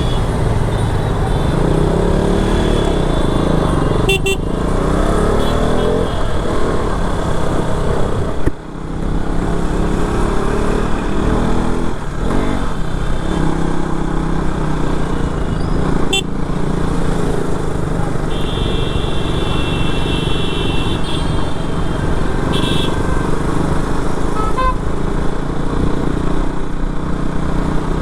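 KTM RC 200's single-cylinder engine running under way through traffic, its pitch rising and falling as it revs, with a brief dip about a third of the way through. Another vehicle's horn honks for about two seconds past the middle.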